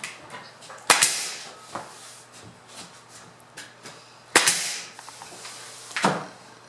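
A few sharp bangs with short fading tails: a quick double bang about a second in, the loudest a little past four seconds in, and another near the end.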